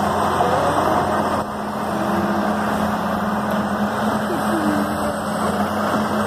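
Bulldozer diesel engines running at a worksite, a steady heavy drone with a constant low hum.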